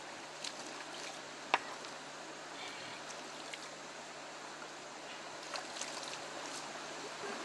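River water running over rocks in a steady rush, with a few faint clicks; the sharpest comes about one and a half seconds in.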